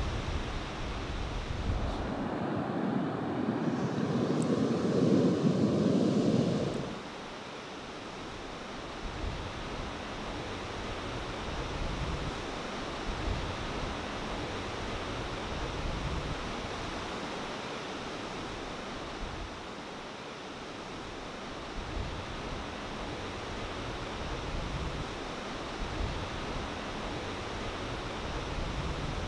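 Ocean surf: a steady rush of breaking waves, with wind gusting on the microphone. From about two seconds in, a louder, muffled rush of surf runs for about five seconds and cuts off suddenly.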